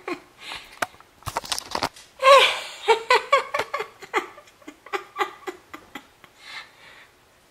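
A person laughing in short broken bursts, after a quick cluster of sharp clicks.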